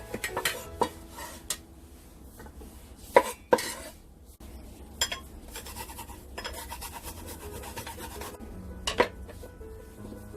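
Sand ginger roots being lightly smashed on a chopping board: a few sharp knocks spread out, with a quick run of tapping about two thirds of the way through. Soft background music plays underneath.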